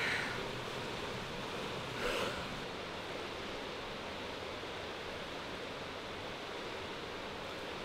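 Steady rushing of splashing pool water as a swimmer swims backstroke, with two brief louder surges, at the start and about two seconds in.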